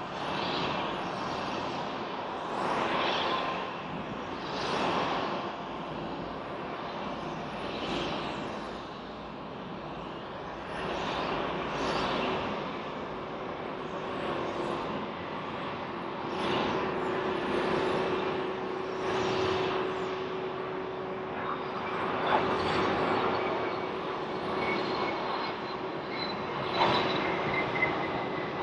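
Distant jet airliner engine noise: a rushing noise that swells and fades every couple of seconds, with a steady whine coming in about halfway through and faint high tones that slowly fall near the end.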